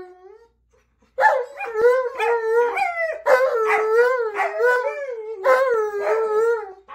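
Alaskan malamute and Siberian husky howling together. A howl trails off at the start, and after a pause of about a second comes a run of short, wavering, overlapping howls.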